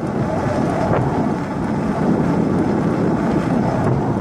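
Wind buffeting the microphone of a phone carried by a moving cyclist: a loud, steady low rumble.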